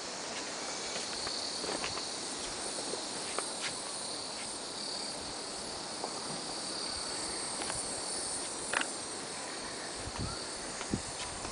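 Steady high-pitched chorus of insects buzzing, with a few light clicks and some low knocks near the end.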